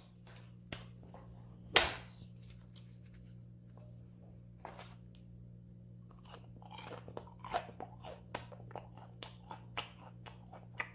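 Crisp crunching and chewing of air-fried battered chicken gizzards, a quick run of crunches in the second half. Two sharp clicks come about one and two seconds in.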